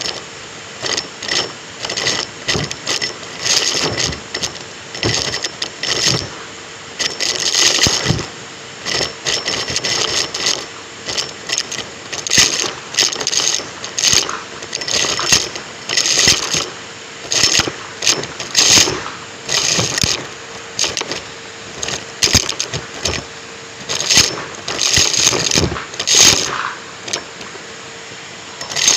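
Numatic James cylinder vacuum cleaner running with a steady motor hum. Its tool is worked over the floor, giving irregular bursts of hissing, crackling suction noise about once a second as it picks up debris.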